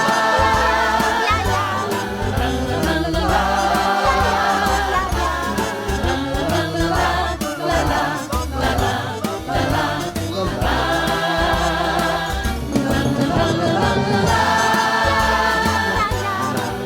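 Cheerful song with a steady bass line and a chorus of voices singing, without spoken words.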